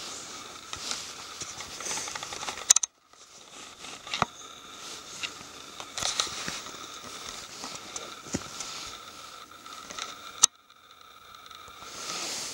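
Handheld camera ambience on a wet forest floor: scattered light crackles and soft steps with handling noise. Two sharp clicks, about three seconds in and again near the end, each followed by a brief drop to near silence where the shot cuts.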